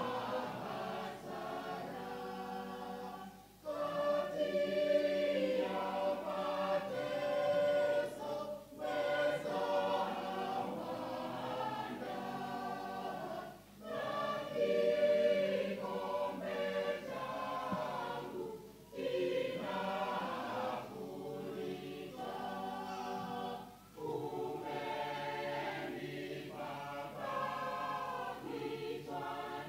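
Mixed church choir of men's and women's voices singing a hymn in harmony, in phrases of about five seconds with a short break for breath between each.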